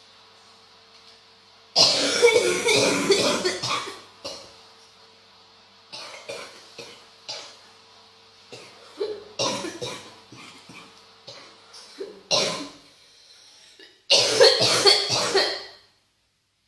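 A person coughing hard in repeated fits: a long bout about two seconds in, scattered single and double coughs through the middle, and another heavy bout near the end. A deep, harsh cough, which the uploader presents as bronchitis.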